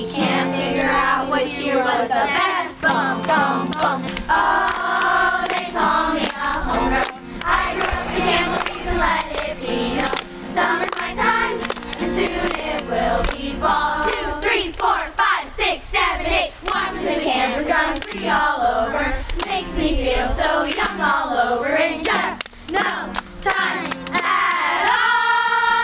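Live recording of a camp anthem sung together by a large group of girls, with hand clapping through the song. Near the end the voices settle onto a long held chord.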